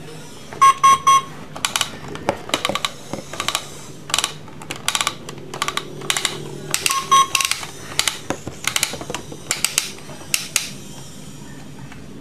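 Toy electronic cash register's handheld scanner giving runs of about four quick short beeps as items are passed under it, about a second in and again about seven seconds in. Many plastic clicks and taps run between them, some in quick clusters.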